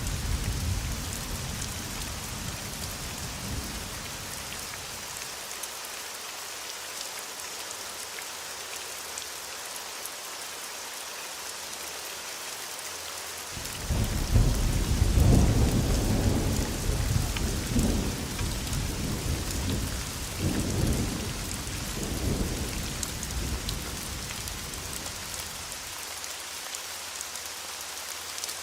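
Steady heavy rain hissing throughout. A low thunder rumble fades out over the first few seconds; about halfway through a loud thunderclap breaks in suddenly and rolls on in several swells for about ten seconds before dying away.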